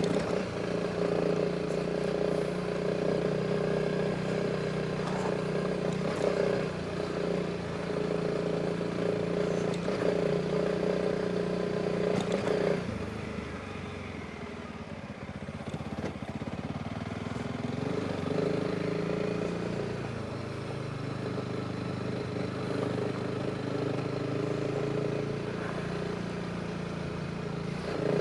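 Honda CRF300 Rally's single-cylinder four-stroke engine running steadily under way, then easing off about halfway through, the note dropping and quieter, before picking up again with a rising pitch and settling to a steady run.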